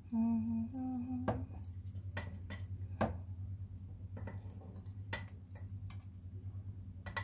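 Scattered light clinks and taps of utensils and chicken pieces against a cooking pot as the chicken is laid in, over a steady low hum.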